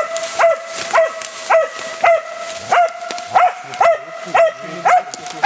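Hunting dog barking steadily at a downed bear, short sharp barks at about two a second.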